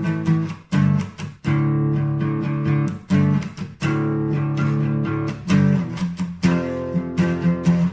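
Guitar music: chords struck again and again, each ringing on before the next stroke.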